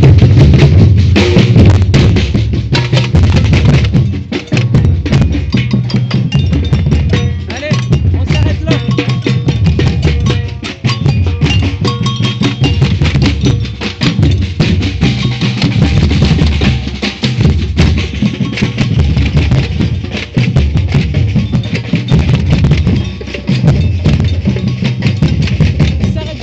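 Batucada percussion ensemble playing: deep bass drums carry the beat under dense, rapid strokes of snare and higher-pitched drums.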